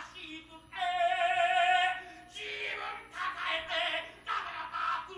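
Voices singing with no instruments audible: a long held, wavering note about a second in, then shorter sung phrases.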